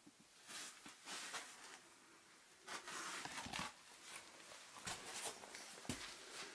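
Irregular rustling and scraping of clothing and boots against sandstone, with a few soft thumps, as a person clambers through a narrow cave passage.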